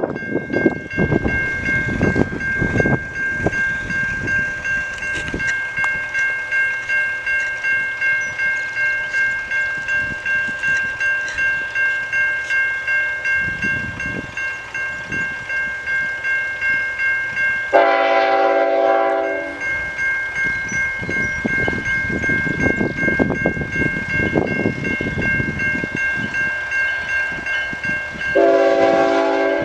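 Railway crossing bell ringing steadily, about two strikes a second, with wind buffeting the microphone. A CN diesel locomotive's horn sounds one long blast about 18 seconds in and another near the end as the train approaches the crossing.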